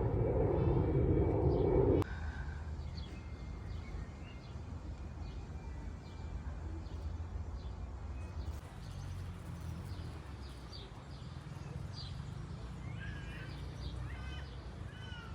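Small garden birds chirping, with a quick run of falling chirps near the end, over a steady low rumble. A louder rushing noise cuts off suddenly about two seconds in.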